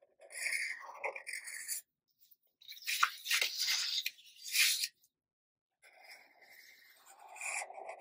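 Black Sharpie marker strokes scratching and squeaking across paper, in three stretches of a second or two each.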